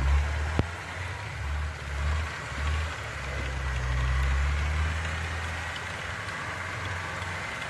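Off-road 4x4's engine running at low revs as it drives slowly along a snow-covered track, a low rumble that swells and eases. There is a single sharp click about half a second in.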